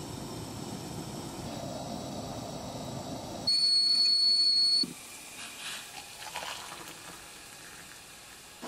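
Stovetop kettle heating on a propane camp-stove burner with a steady rushing noise, then whistling at the boil: one steady high tone, the loudest sound, that cuts off suddenly after about a second and a half. Hot water is then poured into a mug.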